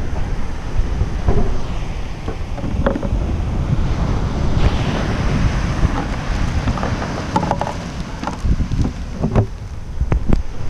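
Ocean surf breaking and washing up a sandy beach, with strong wind buffeting the microphone and a few light knocks.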